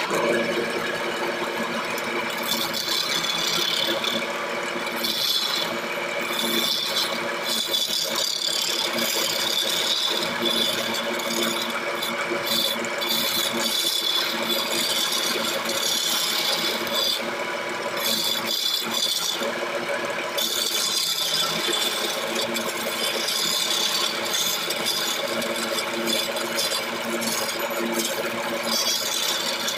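Wood lathe running steadily with a turning chisel cutting a spinning gamari wood blank: a steady machine hum under a rough scraping hiss of the cut. The cutting hiss breaks off briefly several times, as around a third and two thirds of the way through.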